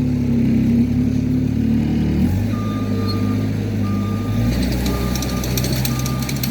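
Skid steer engine running hard and changing pitch as it takes up the load on the pull line, with its reversing alarm beeping about once a second from a couple of seconds in. A burst of sharp crackling comes near the end.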